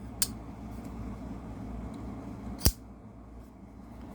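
Asher Douglas folding pocket knife clicking as its blade is worked open and shut: a light click about a quarter second in, then a sharp, louder snap a little over two and a half seconds in.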